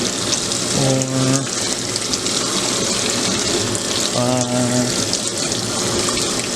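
Washing machine filling with water, a steady rush of water pouring into the drum over a load of towels. Two brief low hums cut in, about a second in and again about four seconds in.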